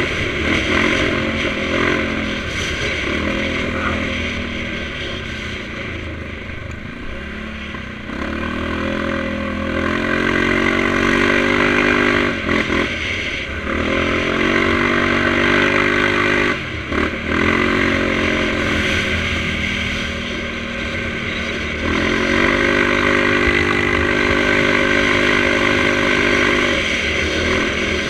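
Yamaha Grizzly 700 ATV's single-cylinder four-stroke engine running through an HMF aftermarket exhaust while riding. The pitch rises through several pulls on the throttle, and the throttle is briefly shut twice near the middle.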